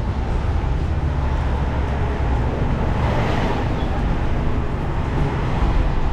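Street traffic noise: a steady low rumble of passing motor vehicles, with one vehicle passing close by about three seconds in.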